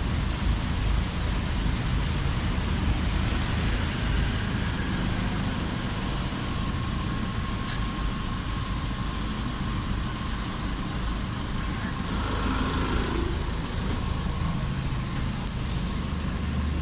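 Street traffic at a busy junction: vehicle engines idling and running close by, a steady low rumble with a faint whine.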